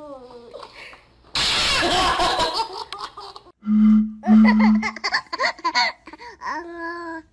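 A baby laughing hard for about two seconds. About halfway through, two short low hoots blown across the mouth of a glass beer bottle, followed by a baby laughing in bursts.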